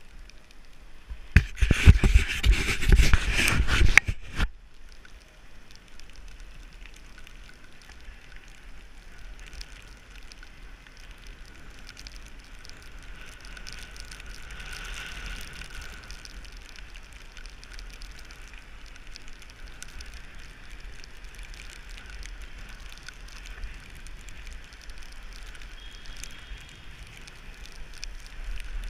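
Bicycle riding on a wet road in the rain: a steady hiss of tyres and rain with wind on the microphone. About a second in, a loud rushing, crackling noise on the microphone lasts about three seconds.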